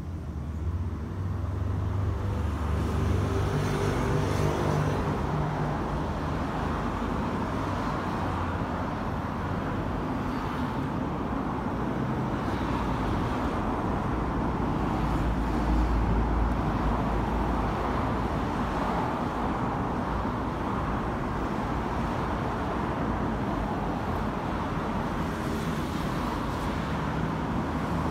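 Yamaha XV1900CU Raider's air-cooled V-twin engine idling steadily, with a deep low rumble.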